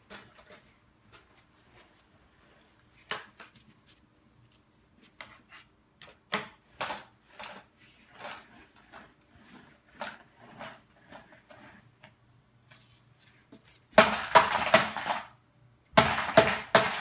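Plastic Lego bricks and toy cars knocked and rattled in a plastic tray by a cardboard tube, first as scattered single knocks, then as a loud dense clatter of bricks about 14 seconds in and again about 16 seconds in.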